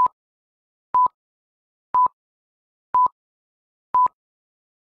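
Film-leader countdown beeps: a short, steady electronic tone of one pitch sounding five times, once a second, with a sharp click at the start and end of each beep.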